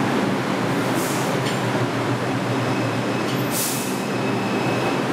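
R142 subway train rolling slowly along the platform, a steady running rumble with two short high hisses, about a second in and again past three and a half seconds.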